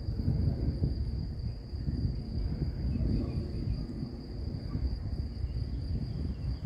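Crickets chirping in a steady, high, continuous tone, under a louder, uneven low rumble.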